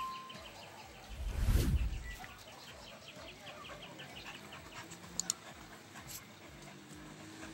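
Faint, rapid high chirping, about five chirps a second, with a loud low rumble about a second in and two sharp clicks a little after five seconds.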